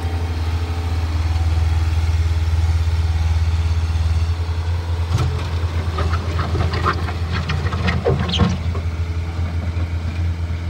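Bobcat 753 skid steer loader's diesel engine running steadily with a deep hum. From about five seconds in, a series of sharp clicks and knocks sounds over it for a few seconds.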